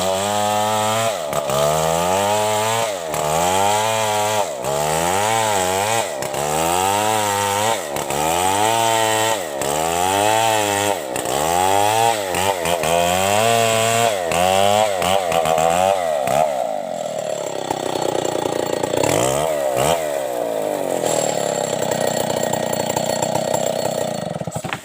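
Stihl 070 two-stroke chainsaw ripping a felled coconut trunk lengthwise. Its engine pitch swings up and down about every one and a half seconds, then settles into a steadier run under load for the last several seconds.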